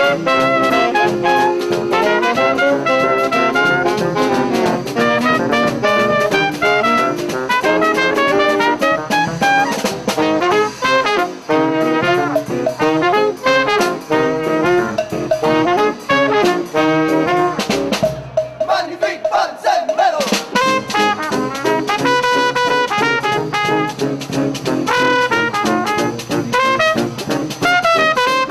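Street brass band playing: trumpet and saxophones carry the tune over tuba and drums. About two-thirds of the way through the band holds a long chord, then picks up again.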